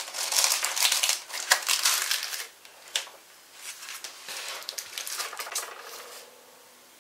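Craft stencils and their plastic packaging rustling and clicking as they are shuffled and laid down on a table, with one sharp click about three seconds in and softer handling after it.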